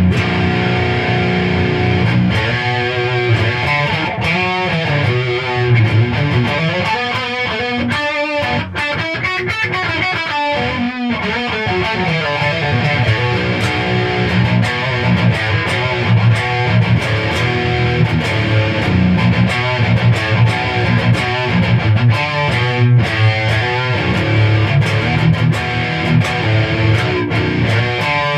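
Gibson Les Paul Studio electric guitar in drop B tuning, played through a distorted amp to demo newly installed pickups: heavy low riffing with a couple of brief breaks and wavering single notes about eight to eleven seconds in. The tone is described as "beefy".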